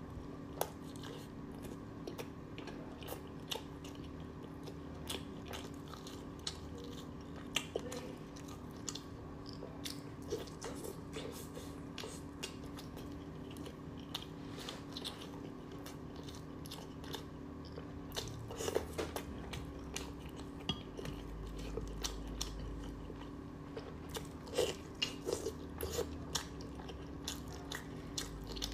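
Close-miked chewing and biting of braised chicken giblets, with many short sharp clicks scattered throughout, over a steady low hum.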